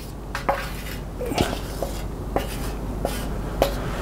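Scattered light metallic taps and clicks, about a dozen, irregularly spaced, from a hand-shaped metal panel being handled and touched at its edge.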